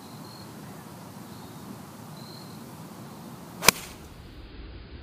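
Golf iron striking a ball off the turf: one sharp crack about three and a half seconds in, over a steady outdoor hiss.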